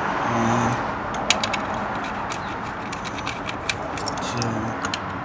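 A socket ratchet on a long extension clicks irregularly as it backs out the 10 mm ignition coil bolts, over a steady background hiss. A short low tone sounds twice, once within the first second and again about four and a half seconds in.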